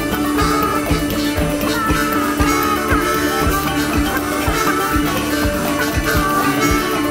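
Instrumental break of a country-rock song: drums keep a steady beat under a held low drone, while a lead instrument plays bending, sliding notes.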